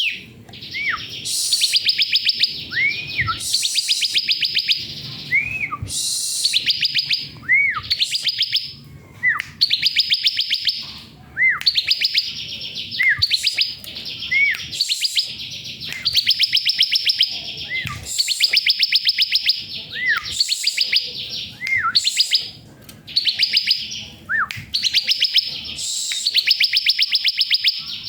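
Bar-winged prinia (ciblek) singing: fast, high trills about a second long, each led by a short arched note, repeated one after another every couple of seconds.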